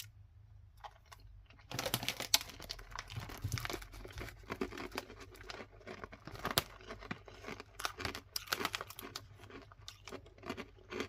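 Freeze-dried Skittle-like sweets crunching as they are chewed: an irregular crackle that starts about two seconds in and keeps going.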